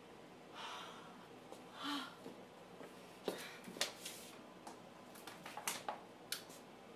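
A woman's heavy, strained breaths and a short groan, then a scatter of sharp clicks and knocks in the second half.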